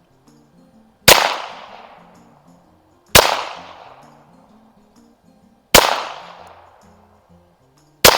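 AMT Lightning .22 LR semi-automatic target pistol fired four times, the shots about two to two and a half seconds apart, each sharp crack trailing off in echo.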